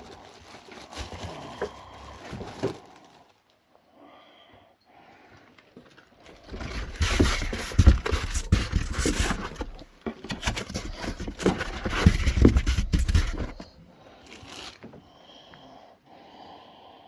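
Packaging being handled while unboxing a robot vacuum: rustling, crinkling and scraping with scattered knocks. It comes in two loud stretches of a few seconds each, around the middle, with quieter handling before and after.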